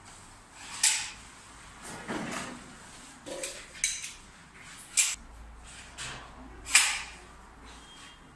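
A handful of sharp knocks and clacks at irregular intervals, like hard objects being handled or set down. The loudest comes near the end.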